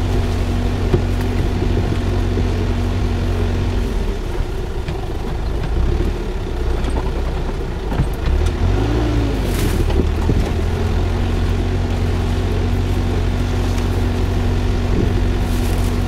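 Tractor engine running steadily. Its note eases off about four seconds in, rises and falls briefly near the middle, then settles back to its steady note.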